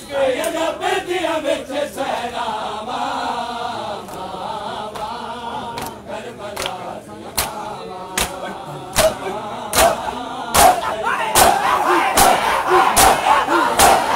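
A crowd of men chanting a Punjabi noha in unison, a mourning lament, to the rhythm of open-handed chest-beating (matam). The slaps become sharp and regular about halfway through, at roughly one a second.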